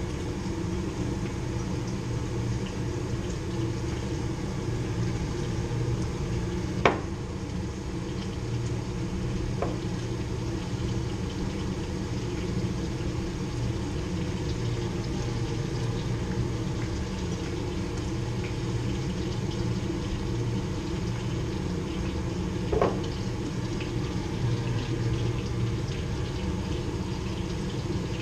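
Steady rushing, humming noise, with one sharp knock about seven seconds in and two lighter knocks near ten and twenty-three seconds.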